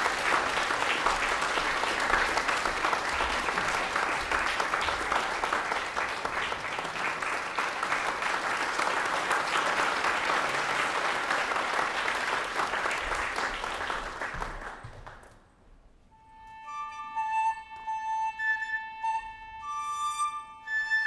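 Audience applause that fades out about fifteen seconds in. After a brief hush, a dizi (Chinese bamboo flute) starts playing held notes, with a falling glide near the end.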